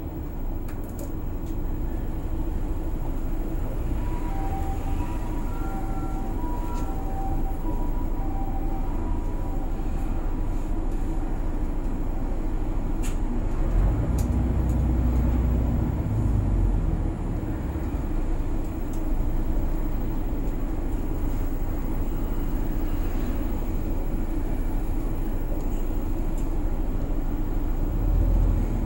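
A city route bus running between stops, heard inside the cabin: a steady low engine and road rumble. About four to ten seconds in there is a run of short beeps.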